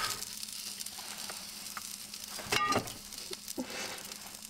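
Food sizzling in butter in a frying pan on a portable gas stove, a steady hiss throughout. A brief, louder, ringing sound stands out about two and a half seconds in.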